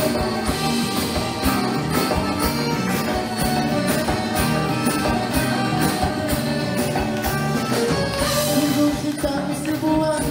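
Live band playing an upbeat Malay pop-traditional song, with drum kit and tambourine-like percussion keeping a steady beat, guitars and keyboards, and a singer on a microphone.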